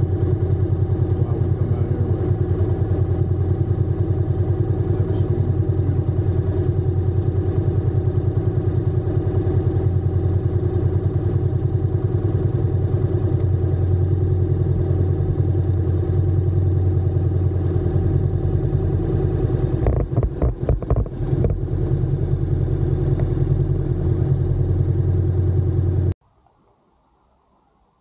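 Honda NC750X's parallel-twin engine running steadily, with a brief uneven stutter about twenty seconds in, then cutting off suddenly near the end: the engine is switched off.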